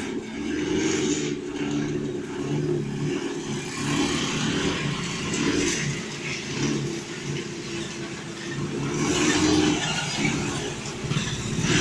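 Motor vehicle engine running, its pitch rising and falling as it revs, louder near the end.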